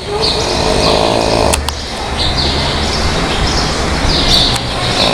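Snoring, with small birds chirping short falling notes over and over, one or two a second. A couple of sharp clicks come about a second and a half in.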